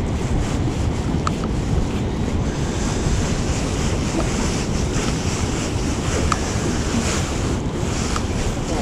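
Steady wind buffeting the microphone over the wash of open water, with a few faint ticks.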